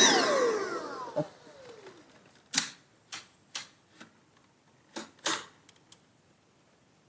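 A whine at the start that falls in pitch and fades over about two seconds. Then about half a dozen sharp plastic clicks and knocks, spaced a second or so apart, as a Dyson stick vacuum's dust bin and its catch are handled and snapped into place.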